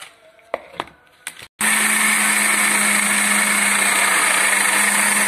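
After a few faint clicks, an electric hand mixer switches on suddenly about a second and a half in and runs at a steady speed, beating cake batter just after the flour and baking powder have gone in.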